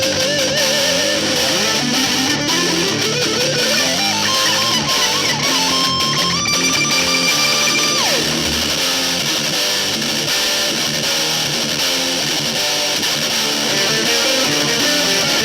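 Heavy-metal instrumental on distorted electric guitars. A lead guitar plays a wavering vibrato melody, climbs in a run, holds a long high note and slides down about eight seconds in, over rhythm guitar playing underneath.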